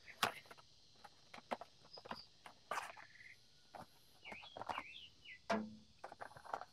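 Cardboard box of a cartridge oil filter being handled and its end flap opened: scattered light clicks and paper rustles.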